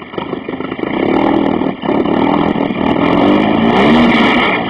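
Honda H22A 2.2-litre DOHC VTEC four-cylinder engine revved twice through an exhaust that still needs fixing: a short rev about a second in, then a longer one that climbs to its peak and falls back near the end.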